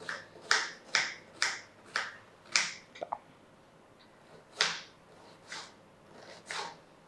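Knife cutting an onion into small pieces on a cutting board: about five quick crisp cuts, two a second, then after a short pause three slower cuts about a second apart.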